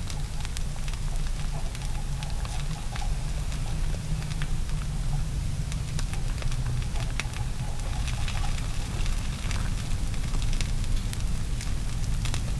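Dry lakebed mud crackling and popping as it melts into glass under a point of sunlight focused by a large Fresnel lens: scattered sharp ticks and pops, over a steady low rumble.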